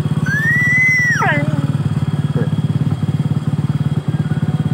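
Motorcycle engine idling steadily. About half a second in, a dog gives one long whine that rises and then falls away.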